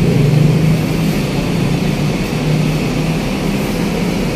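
City bus engine running as the bus pulls past close by, a steady low drone over general traffic noise, easing off slightly as it moves away.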